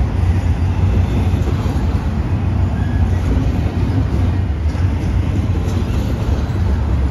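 Double-stack intermodal freight train's container well cars rolling past, a steady low rumble.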